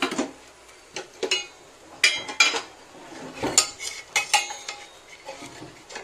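Metal kitchen utensils clinking and scraping in a string of irregular knocks, a few of them ringing briefly, over the faint sizzle of dosa batter cooking on a hot pan.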